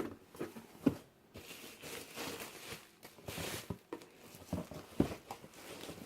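Cardboard subscription box being opened by hand: flaps and packing material rustling, crinkling and tearing, with a few sharp knocks as the box and its contents are handled.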